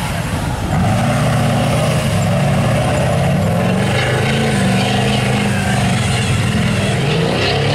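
Diesel engine of a lifted mega mud truck, revved hard and let off again and again, its pitch rising and falling several times as the truck is thrown around the dirt course.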